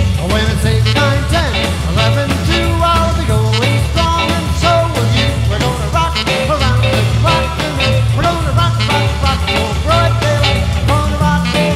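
Upbeat music with a singing voice over a steady beat.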